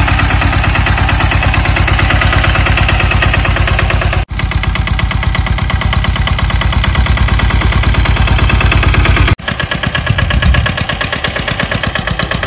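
Saneda (motorcycle-based farm tractor) engine running under load while pulling a seed drill through the field, a rapid, steady train of exhaust beats. The sound breaks off for an instant twice, after about four and nine seconds, and is rougher and more uneven after the second break.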